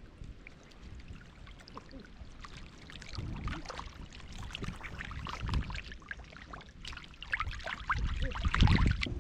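Water splashing and sloshing in irregular bursts as it is stirred by hand, with the heaviest splashes near the end.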